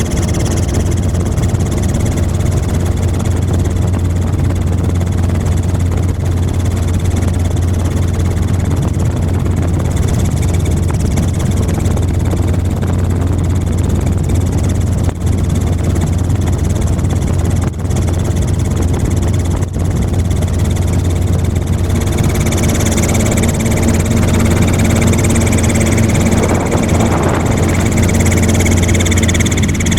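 Helicopter running steadily, heard from on board: a loud, even low drone. About two-thirds of the way through it grows a little louder and brighter.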